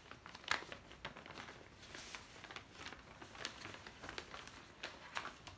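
Gift-wrapping paper crinkling and rustling as it is pulled off a wrapped box, in many short, irregular crackles.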